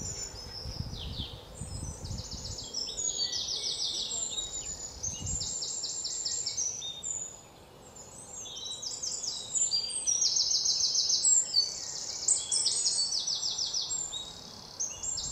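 Outdoor farm ambience dominated by birds chirping: many short, rapid, high-pitched trills overlapping one another. A low rumble runs under the first five seconds.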